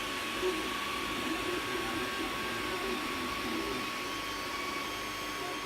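Creality Ender 3 3D printer running a print: its cooling fans whir steadily with a constant high hum, while the stepper motors whine in short, shifting pitches as the print head moves.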